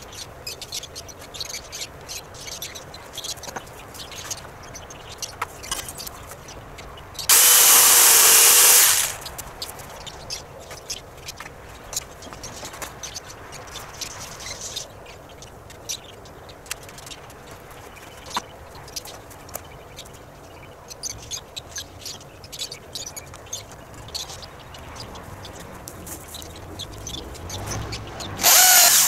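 Power drill driving into the coop's wooden frame: one burst of under two seconds about a quarter of the way in and another starting near the end. Between them, scattered light clicks.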